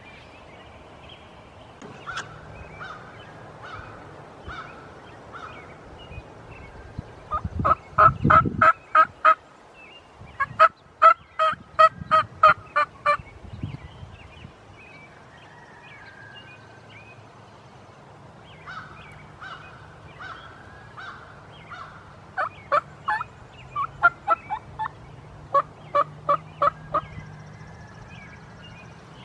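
Turkey yelping: soft runs of evenly spaced notes, then four loud runs of rapid yelps a few seconds apart, each lasting two to three seconds. A dull thud comes near the first loud run.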